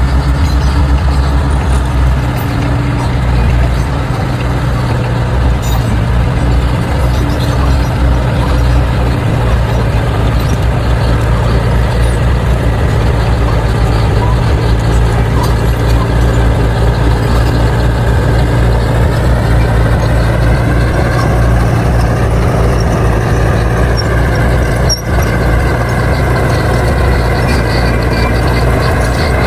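Bulldozer's diesel engine running steadily under load as it pushes soil. Its note climbs a little about two-thirds of the way in.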